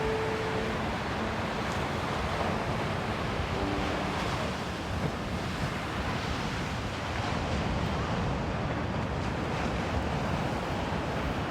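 Steady rushing noise of sea surf and wind, with wind buffeting the microphone. A few faint held tones sit under it in the first few seconds.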